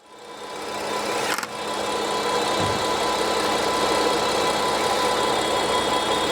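BMW F80 M3's S55 twin-turbo straight-six running at idle with an abnormal noise: steady tones sit over the engine sound, with a single click about a second and a half in. The mechanic puts the noise down to a failed oil separator in the valve cover.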